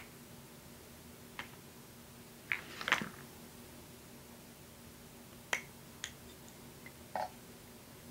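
A handful of short light clicks and taps, about eight in all and irregularly spaced, the loudest cluster around three seconds in, over a faint steady hum of room tone.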